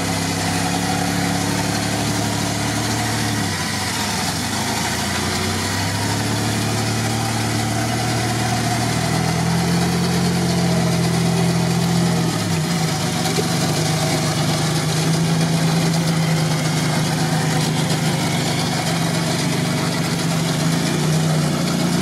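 Toyota 4x4's engine running under load as it crawls through deep mud. The revs sag briefly about four seconds in and again about twelve seconds in, then rise and hold higher.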